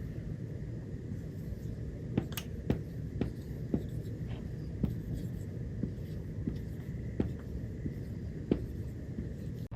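Light ticks or taps at an uneven pace, roughly two a second, over a steady low hum.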